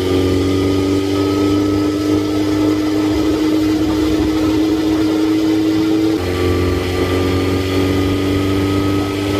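Suzuki GSX-R1000's inline-four engine running under light throttle while riding, its note creeping slowly higher and then stepping down about six seconds in, with a steady rush of wind and road noise.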